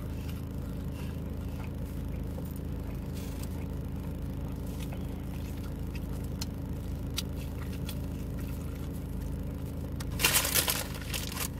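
Steady low hum of a car's engine idling, heard inside the cabin, with a few faint scrapes and clicks and a brief loud crackling burst about ten seconds in.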